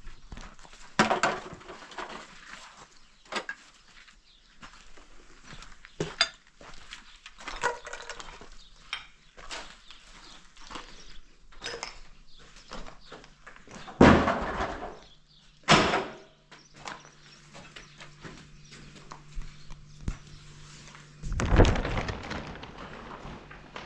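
Irregular knocks and clatters of hard objects, with a few heavy thumps about fourteen, sixteen and twenty-one seconds in. A low steady hum comes in about fourteen seconds in.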